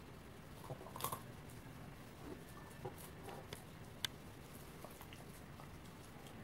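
A dog gnawing open a walnut: faint, scattered cracks and crunches of the shell, the sharpest about four seconds in.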